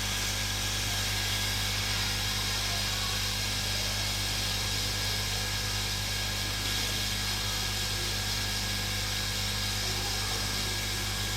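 Hot air rework station blowing steadily, with an even hiss over a constant low hum, while heating a phone logic board to soften underfill glue.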